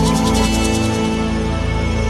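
Instrumental passage of a Chinese pop ballad: sustained chords over a steady bass, with a shimmering high tremolo that fades out about a second in.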